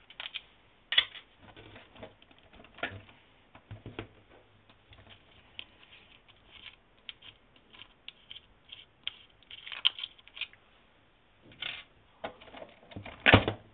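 Hands unscrewing the wheel nuts and pulling the wheels off a 1:8 RC off-road buggy: scattered clicks and taps of small metal and plastic parts being handled, with a louder knock near the end.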